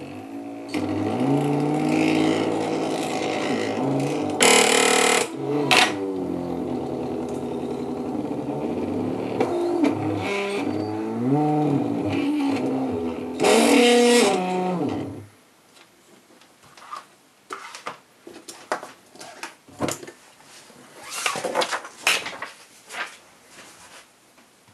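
Stepper motors of an XY pen plotter, driven by an Easy Stepper test driver, whining in pitches that rise and fall as they move the pen carriage, with two brief louder, harsher spells. The whine stops about 15 seconds in, leaving scattered clicks and knocks.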